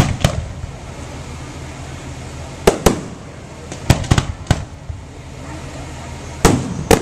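Aerial fireworks shells bursting: about ten sharp bangs, several in quick pairs and clusters.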